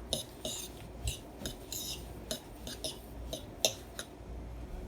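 A utensil clinking and scraping against a bowl while breadcrumbs are stirred, with irregular light clinks several times a second.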